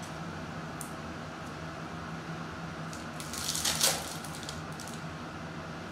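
Foil wrapper of a 2021-22 Contenders NBA trading-card pack being torn open by hand: a few faint crinkles, then a crackling, rustling tear that peaks just before four seconds in, over a steady background hum.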